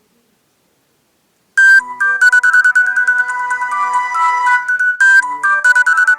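Nokia 6230 mobile phone playing a ringtone. After about a second and a half of silence, a bright electronic melody of quick stepped notes starts, and its opening phrase comes round again about three and a half seconds later as the tone loops.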